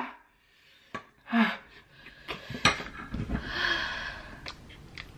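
A person sucking air in through bared, clenched teeth in a breathy hiss about three and a half seconds in, after a short gasp and a few small clicks. The breathing comes from a mouth burning from ghost pepper wings.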